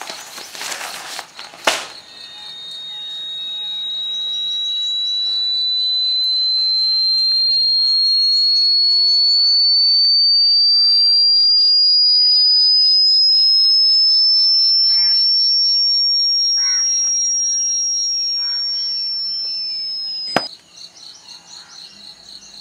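A single loud, high, pure whistling tone that swells in, climbs slowly and steadily in pitch for about eighteen seconds, then cuts off suddenly with a click. Crickets chirp steadily underneath, and a short rustle of newspaper comes at the start.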